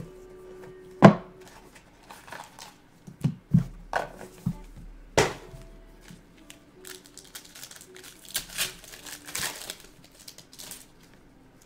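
Several sharp knocks as a trading card box is handled, the loudest about a second in, then the crinkling of a foil trading card pack wrapper as it is torn open near the end.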